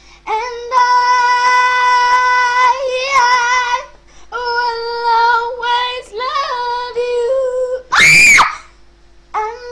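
A young girl singing long, held notes. About eight seconds in she breaks off into a short, loud, high-pitched scream of annoyance.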